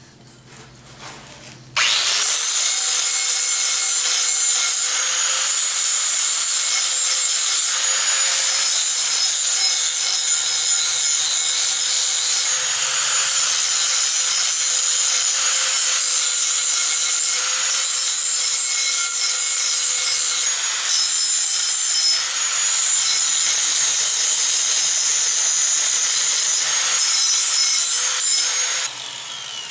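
Angle grinder working against a steel bar: a steady motor whine under a harsh abrasive hiss. It starts about two seconds in and stops just before the end.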